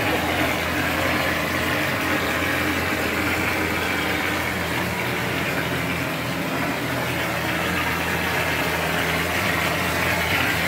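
Plaster spraying machine running steadily: a constant mechanical drone under a hiss.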